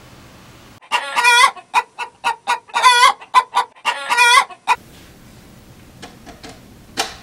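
Chicken clucking: a quick run of short clucks and squawks lasting about four seconds, starting about a second in. A few faint knocks and a sharp click follow near the end.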